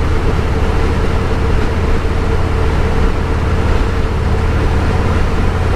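Road noise inside a moving car's cabin: a steady low rumble of tyres and engine with a constant hum, unchanging throughout.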